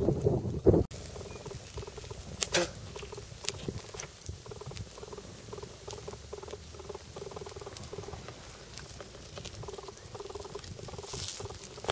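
Wood fire crackling and popping under a grill grate, with scattered sharp clicks over a steady low crackle. A short, loud noise in the first second ends abruptly.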